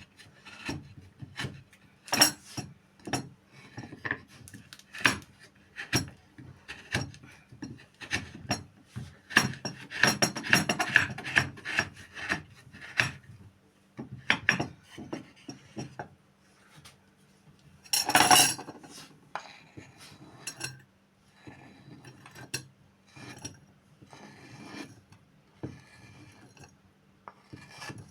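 Irregular scraping and knocking of kitchen utensils, with a dense run of scraping midway and one loud clatter at about two-thirds of the way in.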